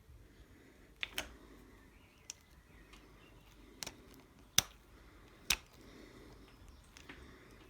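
Scattered sharp metallic clicks and taps, about six, from hand tools and the cable adjuster while the front brake cable's slack is being taken up; the loudest come about four and a half and five and a half seconds in.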